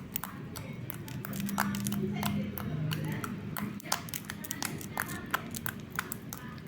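Slime being squeezed and poked by hand, giving rapid, irregular clicks and small wet pops.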